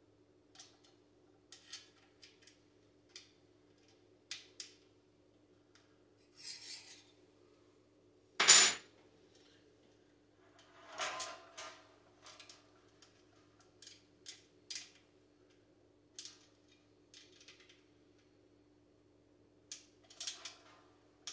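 Scattered small metal clinks and taps as the sheet-metal parts and screws of a Style Selections outdoor gas heater are handled and started by hand. There is one loud, ringing metal clank about eight seconds in.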